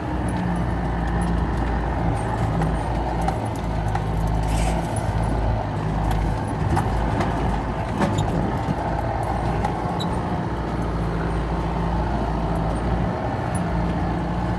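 4x4's engine running steadily while driving, heard from inside the cab, with a low rumble and scattered small rattles and knocks.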